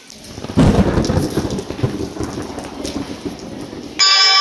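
Heavy rain with a sudden loud clap of thunder about half a second in, rumbling and slowly fading over the next few seconds. Near the end it cuts abruptly to a loud held musical chord.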